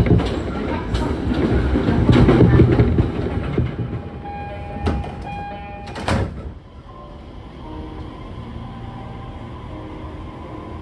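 Electric local train running on the rails, with sharp clacks over the rail joints and a short steady whine about four seconds in. The running noise drops suddenly about six and a half seconds in to a quieter, steady rumble.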